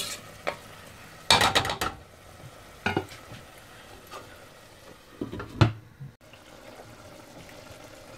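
A few scrapes and knocks of a cooking utensil and a lid against a pot of prawn and drumstick curry, loudest about a second and a half in and again near five and a half seconds. Between them the curry sizzles faintly and steadily on a low flame.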